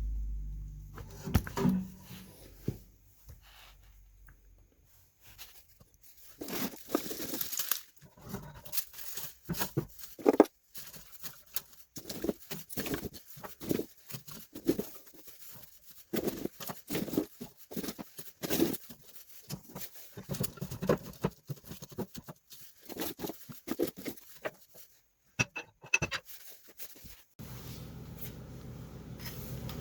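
Knotty firewood being split by hand: a long irregular run of sharp knocks and cracks that starts a few seconds in. A steady low hum comes in near the end.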